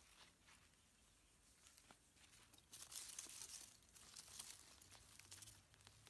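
Faint rustling and tearing of leafy garden plants being handled and picked by hand, growing louder from about three seconds in.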